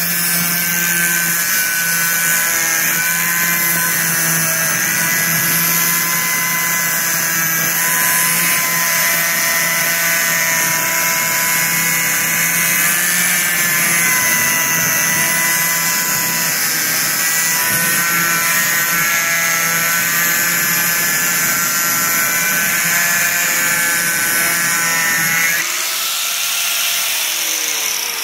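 Angle grinder running steadily with a whine and hiss as it grinds titanium. Near the end it is switched off and its pitch falls as the disc spins down.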